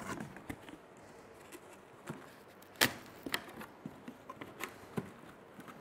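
Box-cutter blade slitting packing tape on a cardboard carton, then fingers working at the tape and flaps: a scatter of light scrapes and clicks, the sharpest about three seconds in.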